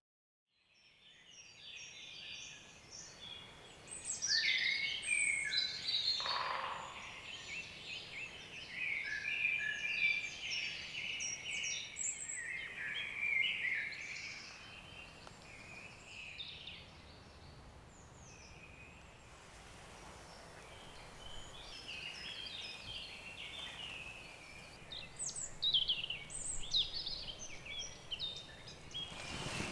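Several songbirds singing and calling at once, with short overlapping chirps and trills. The sound fades in at the start, is busiest in the first half and picks up again near the end.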